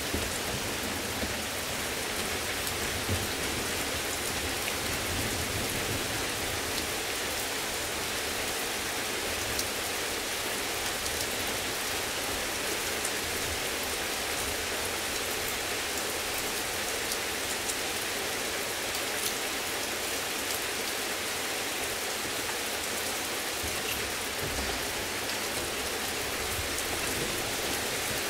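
Heavy rain falling steadily: an even hiss of rain on surfaces with scattered drop ticks.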